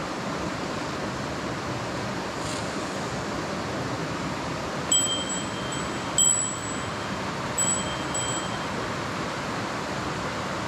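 Steady rushing of a mountain stream and its small cascade. From about halfway in, four bright chime notes ring out one after another, each fading within about a second.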